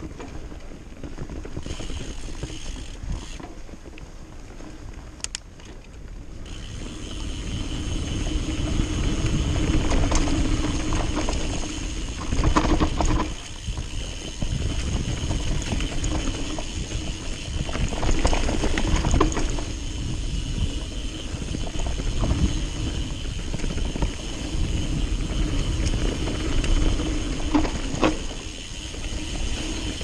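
Trek Fuel EX full-suspension mountain bike riding fast down dirt singletrack, heard from a camera on the bike or rider. Wind rumbles on the microphone and the tyres rumble over dirt and roots, with the bike rattling and knocking over bumps. It gets louder after the first several seconds.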